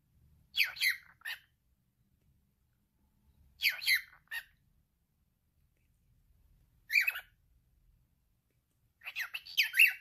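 Male cockatiel talking in four short bursts of high-pitched mimicked speech, each a few syllables long, with pauses between them.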